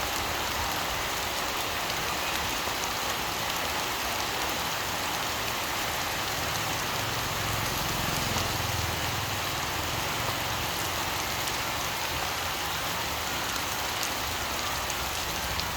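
Steady rain falling, an even hiss that never lets up. A faint low rumble swells and fades about eight seconds in.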